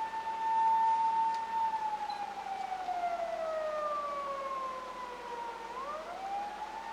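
Japanese police patrol car siren (Toyota Crown 200-series patrol car) wailing on an emergency run: the tone holds high for about two seconds, slides slowly down over the next few seconds, then rises quickly back up near the end.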